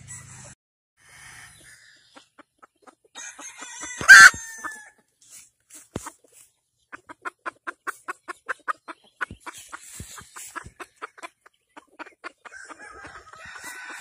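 Gamefowl chickens calling: a rooster crows about three seconds in, with a sharp knock in the middle of it, then a fast run of clucks, about five a second, and another crow starting near the end.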